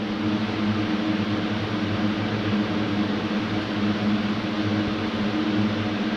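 Steady hum of a running fan or similar small electric machine, with an even hiss of moving air.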